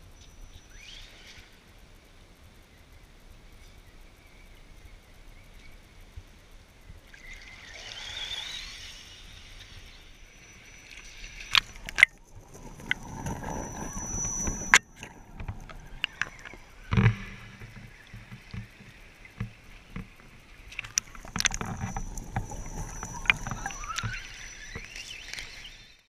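Axial Wraith radio-controlled rock crawler driving through a shallow river: its electric motor whines, rising in pitch in places, amid water sloshing and splashing. Several sharp knocks stand out.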